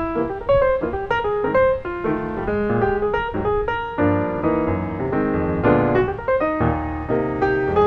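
Background music: piano playing a quick run of notes over a low bass line.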